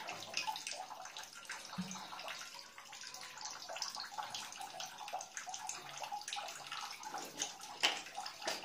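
Light clicks and taps of plastic PPR pipe fittings being handled against a socket fusion welder's heating dies, over a faint steady hiss, with one sharper click near the end.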